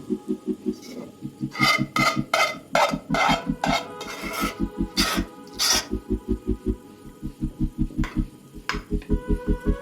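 Background music with a steady, pulsing low beat and a run of sharp percussive hits in the middle.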